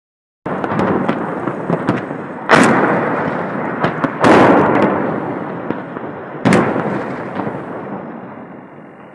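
Explosions from bombardment: three heavy blasts about two seconds apart, each followed by a long rolling rumble that dies away slowly, with a scatter of smaller sharp bangs between them. The second blast is the loudest.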